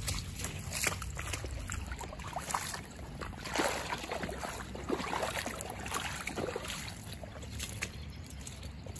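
Footsteps through waterlogged grass and mud, with a boot sloshing through a muddy puddle of floodwater for a couple of seconds around the middle.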